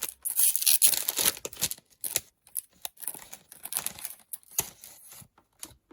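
A sealed trading-item pack being torn open by hand, its wrapper ripping and crinkling loudly in the first couple of seconds, then scattered crackles as the packet is pulled apart and handled.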